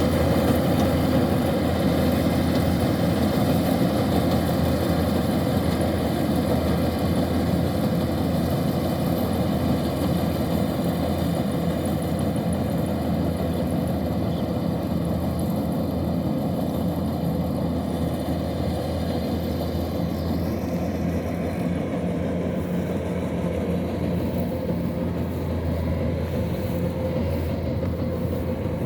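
Kubota DC-105X combine harvester's diesel engine running steadily, with the whir of its machinery. The sound eases slightly and turns duller about two-thirds of the way through.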